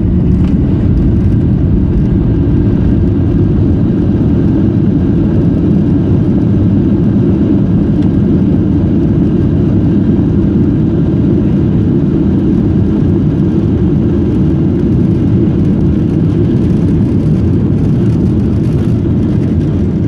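Cabin noise of a Boeing 737-800 on its landing roll, heard from a seat over the wing: a steady, deep rumble of the CFM56 engines and the wheels on the runway.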